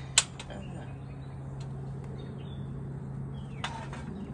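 Faint bird chirps over a steady low hum that cuts off near the end, with one sharp click just after the start.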